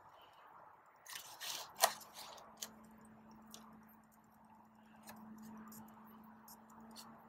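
Faint rustling and crunching as a gloved hand presses potting soil firm around stem cuttings in a plastic pot, with a sharp click about two seconds in and a few lighter ticks after it.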